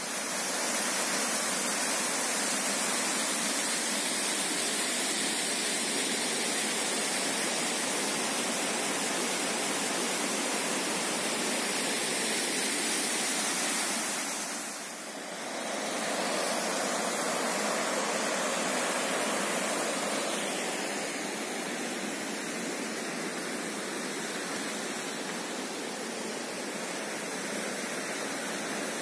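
Waterfall cascading over rocks: a steady, full rush of falling water, with a brief dip about halfway through. For the last third the rush is softer but still steady.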